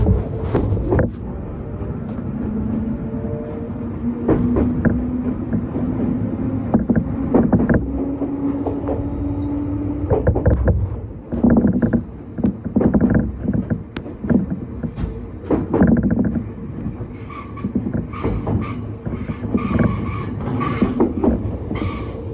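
Electric train running at the platform: a steady motor tone that slowly rises in pitch, over repeated clacks of wheels crossing rail joints.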